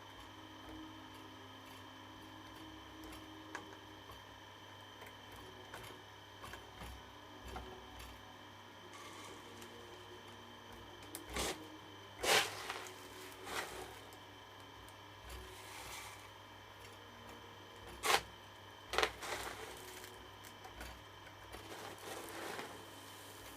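Model excavator arm working: short spells of small-motor whirring over a steady hum, broken by several sharp clacks and knocks, the loudest about 12 and 18 seconds in.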